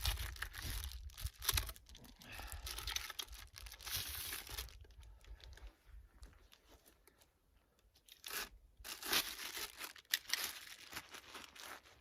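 Plastic crinkling and rustling as it is handled, in spells, with a quieter pause around the middle.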